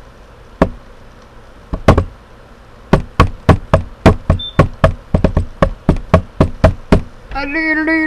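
Sharp knocks, a few spaced apart and then a quick run of about three a second. Near the end a buzzy, wavering pitched sound with many overtones starts.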